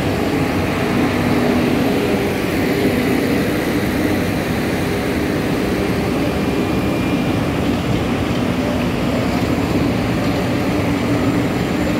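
Diesel engines of several sugarcane grab loaders running together: a steady, even engine hum with no revving.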